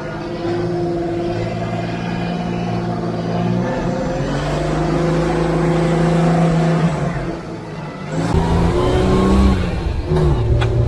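Unimog truck engine running under steady load as the truck drives through sand, its pitch rising a little about four seconds in. About eight seconds in, the sound switches to the engine heard from inside the cab: louder and rougher, with the pitch dipping and rising as the gear lever is worked.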